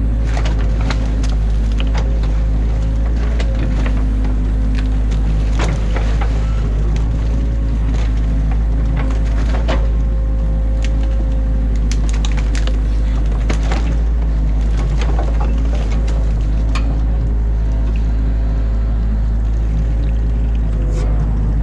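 Excavator's diesel engine running steadily, with many sharp cracks and snaps of sticks and branches breaking as the beaver dam is torn apart. The cracks thin out near the end.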